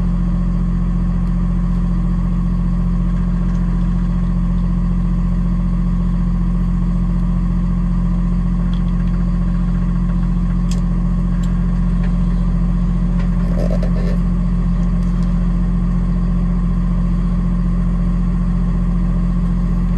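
Box truck engine idling steadily while it warms up, a loud, even low hum heard inside the cab, with a few faint clicks from handling parts at the steering wheel about halfway through.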